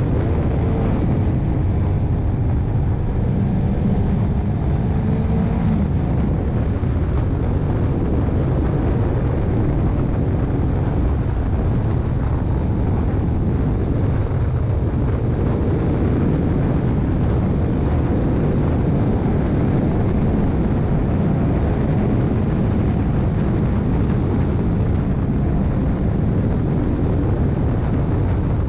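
Motorcycle riding at road speed: steady wind rush over the microphone with the engine's low hum beneath it.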